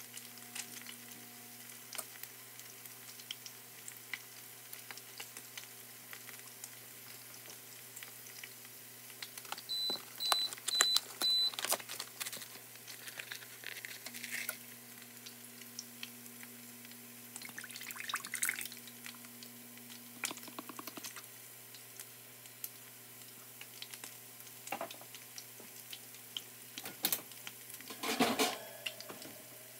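Butter melting and crackling softly in a frying pan. About ten seconds in, an electronic appliance beeps four short times, and near the end whipping cream is poured into the pan.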